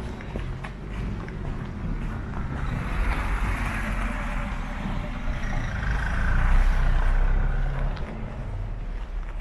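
A motor vehicle driving past on the street: a low engine rumble with tyre noise that swells to its loudest about six to seven seconds in and then eases off.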